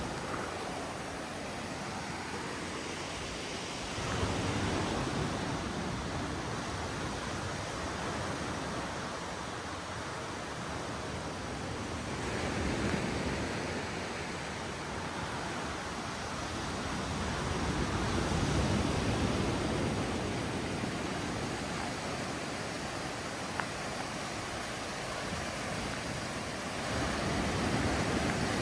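Beach ambience: a steady rush of surf and wind that swells and eases every several seconds.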